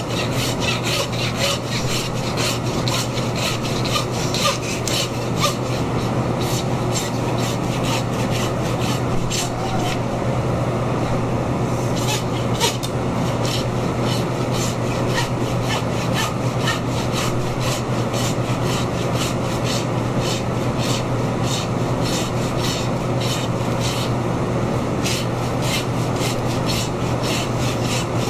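Hand meat saw cutting back and forth through the rib bones of a beef plate. It rasps in quick, even strokes, about two to three a second, with a brief pause about ten seconds in.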